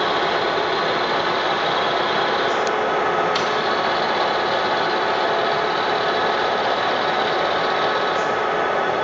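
Gurutzpe Super BT 700 heavy-duty lathe running under power, giving a steady mechanical whir of gears and drives, with a few faint clicks about three seconds in and near the end.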